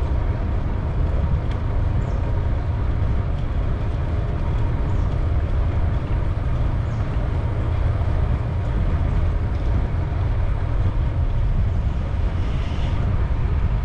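Wind buffeting the microphone of a GoPro action camera on a moving bicycle, a deep, steady rumble of riding noise.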